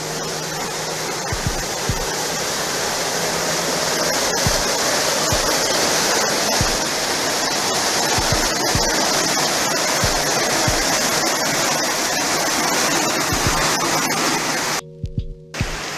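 A small waterfall pouring over granite rock, heard up close: a loud, steady rush of white water, with scattered low thumps. It cuts out for under a second near the end, then picks up as a softer rush.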